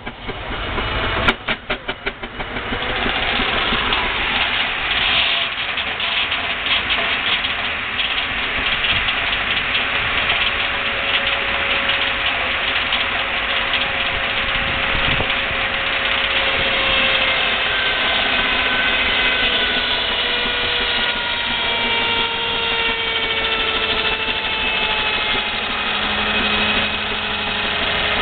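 Powered log saw running: a quick series of knocks in the first couple of seconds, then a steady dense whirr with several whining tones that slowly fall in pitch.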